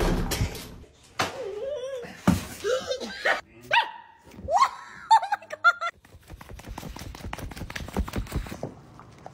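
A thump right at the start, then a dog's short whines and barks mixed with people's voices and laughter, and a spell of quick clicky noise near the end.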